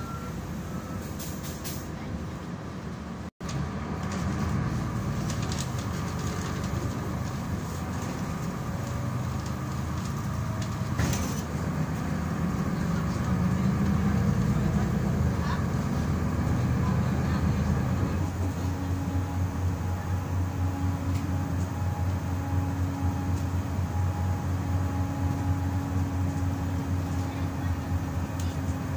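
Solaris Urbino 12 III city bus's engine and drivetrain heard from inside the passenger cabin, getting louder as the bus pulls away and gathers speed. It settles into a steady hum about eighteen seconds in as the bus runs on at speed.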